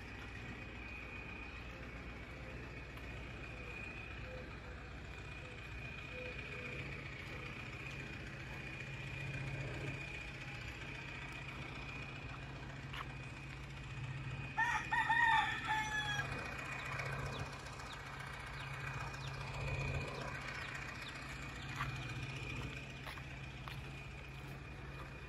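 A rooster crows once, a call of about two seconds midway through, over a steady low hum and a thin, steady high whine.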